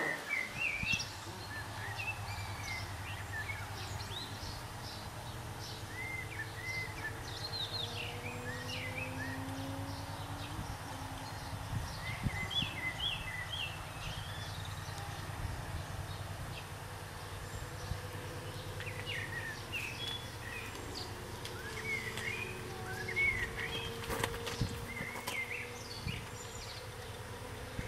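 Outdoor ambience of small songbirds chirping in short, repeated calls throughout, over a steady low hum.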